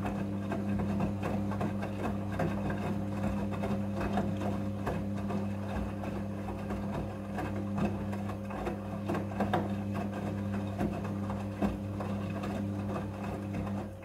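Midea front-loading washing machine running: a steady low motor hum overlaid with a rapid, irregular clatter of small clicks and rattles, starting and stopping abruptly.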